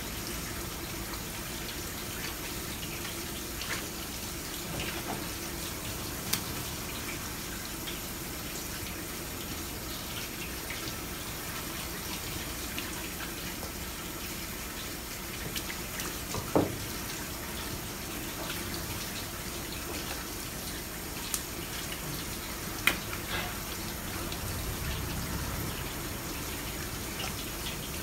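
Tap water running in a steady stream onto a plastic cutting board and the squid being rinsed under it. A few short knocks and clicks sound over it, the sharpest about two-thirds of the way through.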